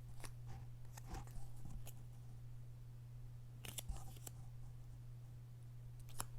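Scattered small clicks and rustles of paper cards being handled, strongest about a second in and again around four seconds, over a steady low hum.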